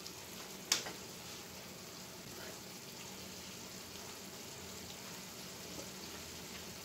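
Tomato-and-onion sauce simmering faintly in a skillet on a gas burner, a steady low hiss, with one sharp click just under a second in.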